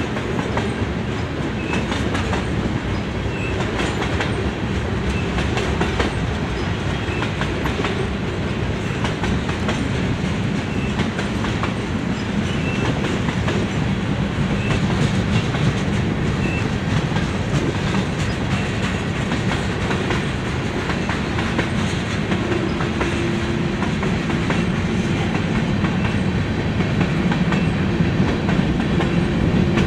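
Freight train of covered hopper cars and tank cars rolling past, steel wheels clicking over the rail joints in a steady clickety-clack.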